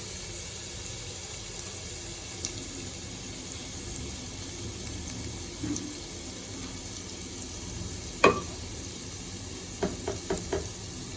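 Chopped garlic sizzling steadily in melted butter in a frying pan. A few sharp knocks sound near the end.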